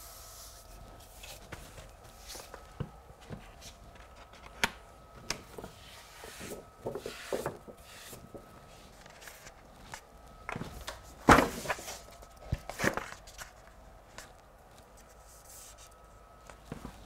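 Rustling and crinkling of a large paper backscene print as it is peeled back from the wall and smoothed down by hand and with a paste brush, with scattered light taps. The loudest rustle comes a little past the middle.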